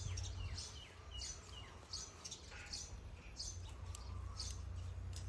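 Small birds chirping, a string of short chirps that glide down in pitch, over a low steady background rumble.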